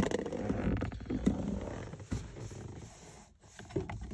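Handling noise: rubbing and rustling of clothing and seat fabric against the recording phone's microphone as it is moved about, starting with a sharp knock and fading over about two seconds, then a few light clicks.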